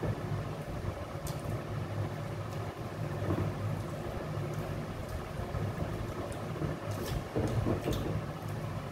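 A steady low mechanical hum fills the room, with faint scattered clicks and mouth sounds from two people eating rice and mutton with their hands.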